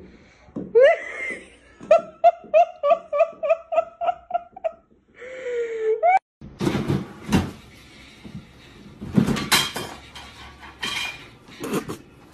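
A person laughing in a quick run of short ha-ha bursts. After a cut, scattered knocks and clatter.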